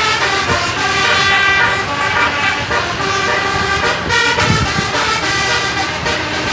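An 18-note 'Rahma' telolet bus horn, an electric multi-tone air horn, playing a continuous melodic run of notes that change pitch every fraction of a second.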